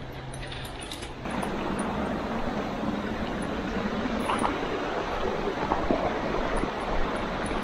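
Steady rush of a small creek's running water, growing louder about a second in, with a few faint brushes or steps in the undergrowth.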